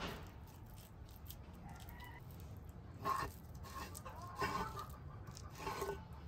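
Domestic chickens clucking in short bursts, about three seconds in, again a second and a half later and once more near the end.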